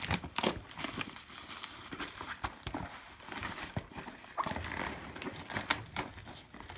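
Corrugated cardboard shipping box being handled and pulled apart by hand: irregular knocks, scrapes and rustles of cardboard.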